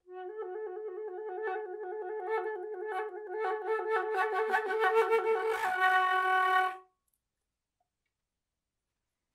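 Concert flute holding one low note with an even, fast vibrato, its pitch wavering about five times a second, made by pulses of breath from the diaphragm. The pulses grow stronger and the tone louder, then the vibrato stops, the note is held plain for a moment, and it cuts off about seven seconds in.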